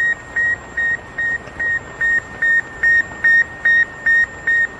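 Electronic beeping: one high-pitched beep repeating evenly, about two and a half short beeps a second, over a steady hiss.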